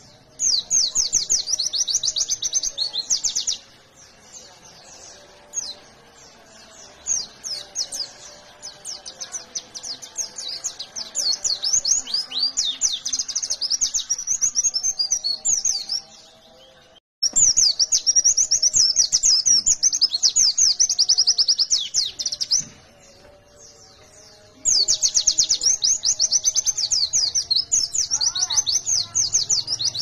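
A pleci (white-eye, Zosterops) singing in a fast, dense, high twittering song, delivered in several long bouts separated by short pauses. The song cuts out abruptly for a moment a little over halfway through.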